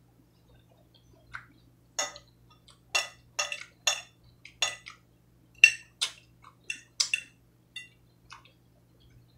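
Metal fork clinking and scraping against a ceramic plate while picking up salad: about fifteen sharp, ringing taps at an uneven pace, starting about two seconds in.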